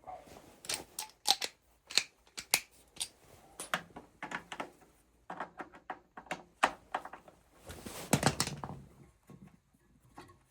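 Irregular sharp clicks and knocks of tools and metal parts being handled while a tight-fitting part is worked loose from an oil boiler, with a longer scraping rattle about eight seconds in.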